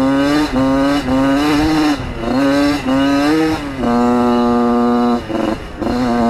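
1994 Yamaha YZ80's two-stroke engine under way, revving up and dropping back several times in quick succession, then holding a steady high pitch for about a second before easing off briefly about five seconds in and picking back up.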